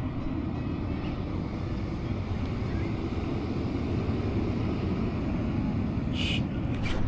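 Wind buffeting the microphone: a steady low rumble, with a brief high hiss about six seconds in.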